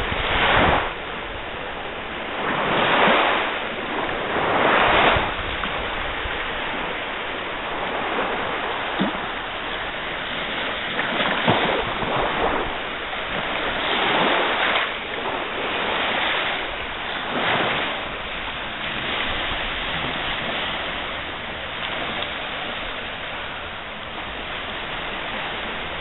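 Baltic Sea surf washing onto a sandy beach, a steady rushing that swells and falls back every few seconds, mixed with wind on the microphone.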